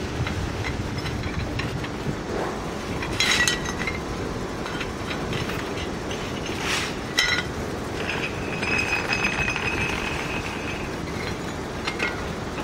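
Clay roof tiles clinking and knocking against each other as they are handled and set in mortar: a few sharp, briefly ringing clinks over steady background noise.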